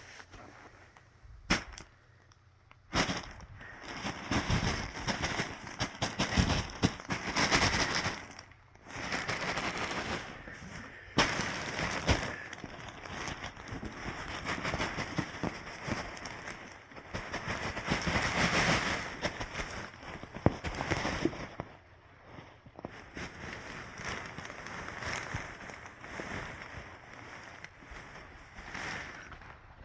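A bean-bag rustling as a cat pounces on, claws and wrestles with it, in irregular bursts of dense rustling full of small clicks. A few sharp single clicks come just before the rustling starts in earnest, and it quietens for a moment about two-thirds of the way through.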